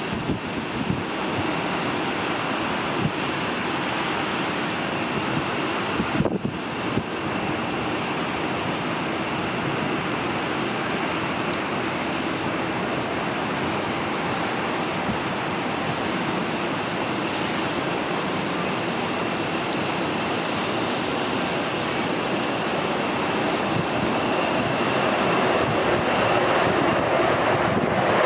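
Jet engines of F-15C Eagle fighters, Pratt & Whitney F100 turbofans, running as a steady rushing noise with a faint high whine, growing louder over the last few seconds.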